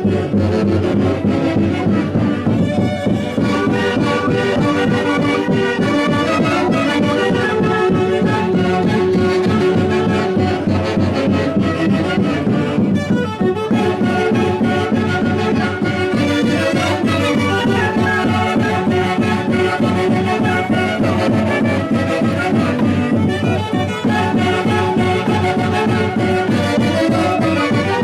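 Andean orquesta típica playing festive Santiago music, with held wind notes over a steady beat.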